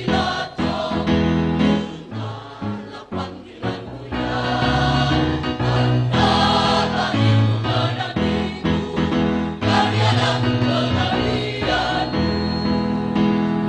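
Choir singing to musical accompaniment, with a steady deep bass line under the voices.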